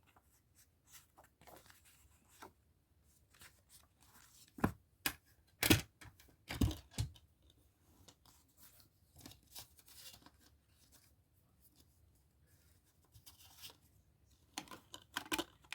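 A plastic CD jewel case and its paper booklet being handled: scattered clicks, snaps and rustles. The loudest clicks come a little after the middle and again near the end.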